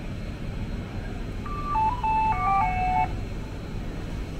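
Railway station public-address chime: a short electronic jingle of several stepped notes, lasting about a second and a half from around a second and a half in. Under it is the steady low rumble of the station hall.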